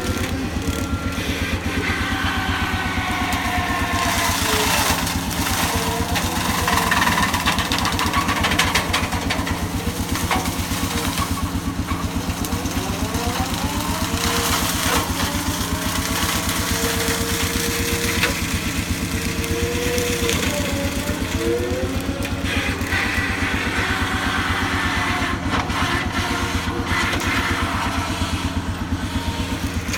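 Skid steer engine running steadily under load, with whines that rise and fall in pitch several times.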